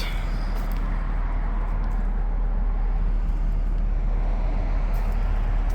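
Air-conditioner condensing units running outdoors: a steady fan rush with a low hum underneath.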